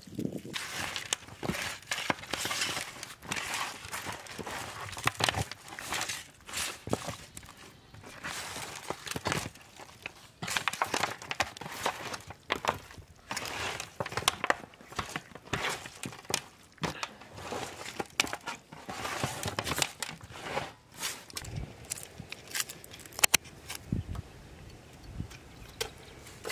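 Hands kneading raw quail with turmeric, ginger paste, salt and lemon juice on a steel plate: a run of irregular squelches and clicks as the meat is mixed.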